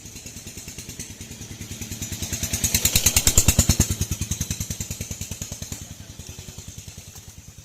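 Small engine passing by with a fast, even putter. It grows louder to a peak about three seconds in, then fades away.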